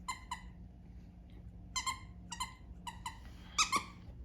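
Short, high-pitched squeaks, mostly in quick pairs, repeated about five times at uneven intervals over a faint steady hum.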